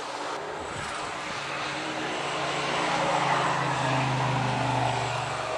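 1977 Camaro's engine running through its new exhaust, the exhaust note swelling steadily louder to a peak past the middle and easing off near the end.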